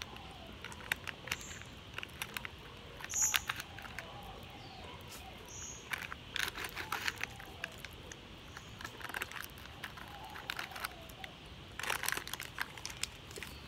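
Plastic candy packet crinkling in short bursts several times as fingers work it open and dig into it, with faint bird chirps behind.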